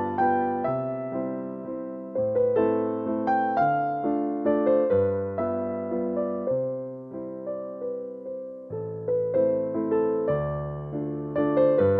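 Background piano music: a melody of struck notes that ring and fade, over low bass notes that change every second or two.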